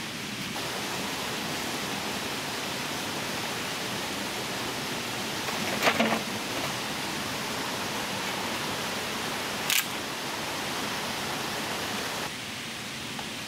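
Steady rushing noise with two sharp knocks, one about six seconds in and one near ten seconds. The rushing drops a little just before the end.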